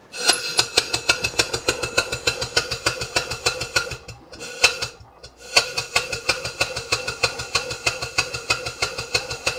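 Stuart steam engine running on compressed air: a fast, even beat of sharp exhaust puffs over a steady whistle. The beat stops for about a second midway, then picks up again.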